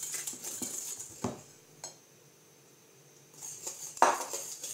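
Hand whisk beating egg-and-sugar batter in a glass bowl, the metal wires clicking quickly against the glass. The strokes stop for about two seconds midway, then start again with one sharp knock.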